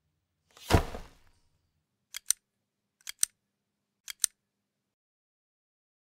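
A short whoosh about a second in, then three sharp double clicks about a second apart, each a faint click followed by a louder one.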